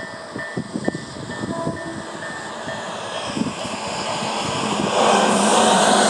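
Level-crossing electronic warning bell of the Tobu 'sound A' type, chiming about twice a second. The rising rush of an approaching Tobu 100 series Spacia train swells over it and becomes loud from about five seconds in as the train passes.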